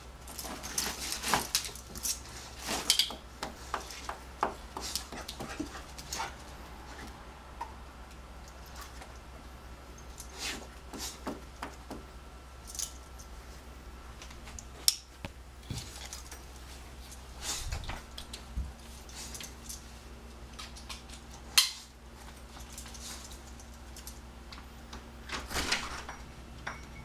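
Intermittent metal jingling and clicking from a dog's collar tags and leash clasp as the leash is clipped on and the dog moves, with a few light knocks in between.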